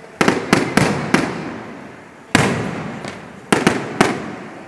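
Aerial firework shells bursting overhead: about eight sharp bangs, four in quick succession at the start, one a little over two seconds in and three more near the end, each echoing off the surrounding buildings as it fades. The bangs are loud enough that people nearby who did not know about the display took them for gunshots.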